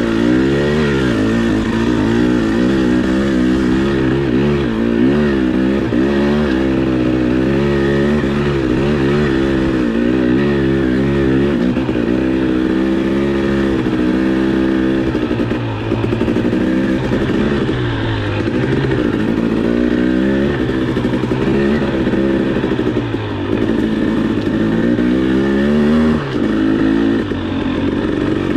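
Husqvarna TX300i two-stroke dirt bike engine under way, its revs rising and falling over and over as the throttle is opened and closed.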